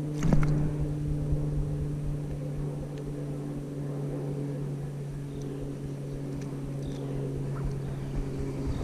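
A steady low motor hum with a few higher overtones, unchanging throughout. A knock comes about a quarter-second in, followed by a low rumble underneath.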